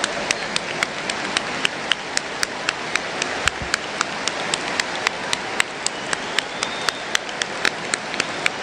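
A large crowd applauding and stirring, with sharp claps landing at a steady beat of about three or four a second.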